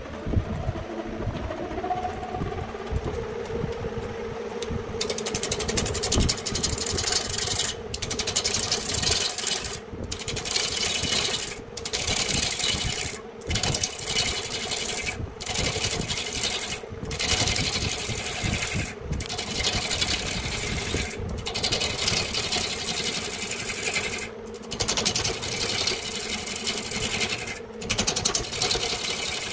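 Wood lathe spinning a large wooden blank while a turning gouge cuts into it: a rapid chattering rattle of the tool on the wood over the lathe's steady hum. For the first few seconds the cutting is lighter. After that it comes in passes with a short pause every second or two.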